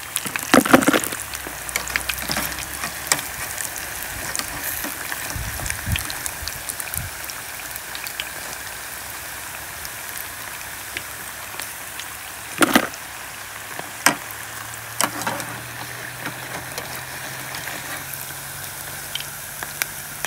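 Breaded fish fillets deep-frying in hot oil in a pan, a steady sizzle and crackle. A few sharp knocks sound over it, the loudest about 13 seconds in.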